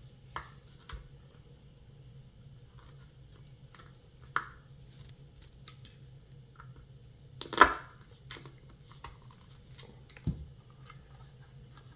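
Zip ties being handled and pulled tight with pliers around an electric scooter tire: scattered small clicks and knocks, with one louder rasping pull about seven and a half seconds in.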